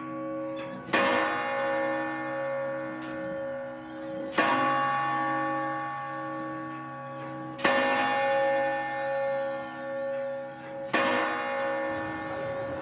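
A large bell tolling, struck four times about three seconds apart, each stroke ringing on with a slowly wavering hum until the next.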